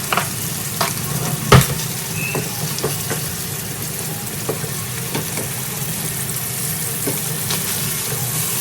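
Chicken breast pieces sizzling steadily in a frying pan while they are turned, with scattered clicks of a utensil against the pan and one loud knock about a second and a half in.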